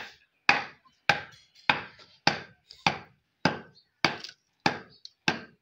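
A wooden stick pounding lumps of dry raw clay on a dirt floor, crushing them fine. About ten evenly spaced blows, a little under two a second.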